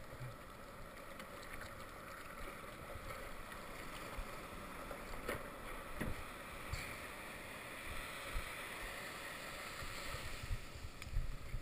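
Surf whitewater rushing and hissing around a board riding in toward the shore, with a couple of light knocks near the middle.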